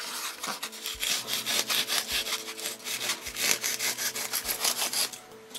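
Kitchen steak knife sawing into a block of green foam with quick back-and-forth strokes; the sawing stops near the end.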